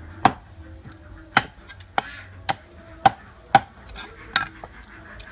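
Large knife chopping through a plucked duck on a round wooden chopping board: about seven sharp chops, unevenly spaced.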